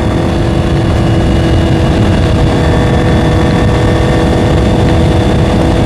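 Honda CBR650R's inline-four engine running at a steady speed while the bike is ridden, its pitch holding level, over a dense low rumble of wind and road noise.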